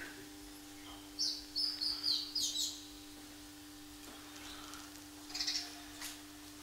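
Small birds chirping in quick high bursts, a run of chirps about a second in and another short burst past five seconds, over a steady low hum.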